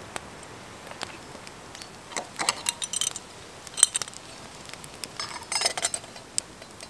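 Light metallic clinks and rattles of small hard objects being handled, in three short clusters about two, four and five and a half seconds in, over a faint crackle and hiss from a wood campfire.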